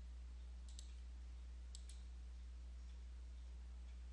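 Computer mouse clicking twice, about a second apart, each click a quick double tick of press and release, over a steady low electrical hum.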